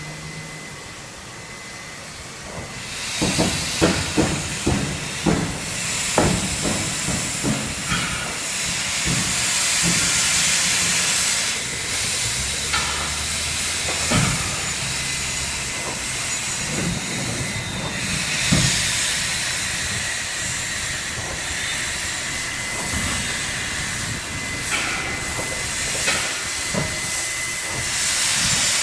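NSWGR C36 class 4-6-0 steam locomotive 3642 moving slowly in reverse, its steam hissing steadily. A run of irregular puffs and knocks starts a few seconds in.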